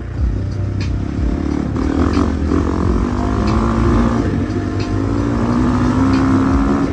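Motorcycle engine, likely the Husqvarna 450's single-cylinder, running and slowly climbing in pitch as it speeds up, over background music with a steady beat.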